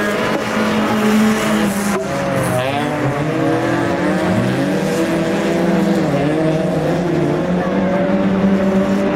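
Several ice-racing cars' engines revving, overlapping pitches rising and falling as the cars accelerate and lift off, over a steady low engine drone.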